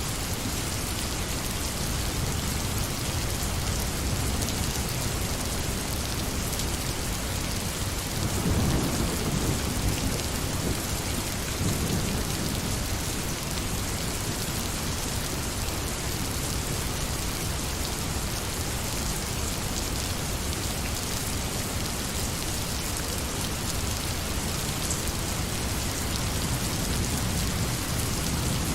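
Steady rain falling, with a low roll of thunder about eight seconds in that lasts a few seconds, and a softer rumble near the end.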